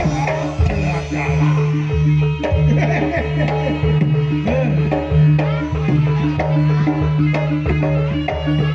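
Jaranan gamelan music: hand drums (kendang) beating a busy rhythm over short repeating pitched gong-chime notes and a sustained low tone.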